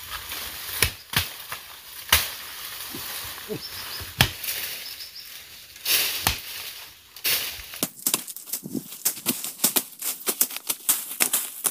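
Sharp chopping strokes into wood, a second or two apart. From about two-thirds of the way through comes a dense run of quick crackles and rustles.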